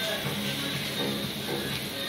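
Music with a melody of short, stepping notes, over the hiss of donuts frying in the machine's hot oil.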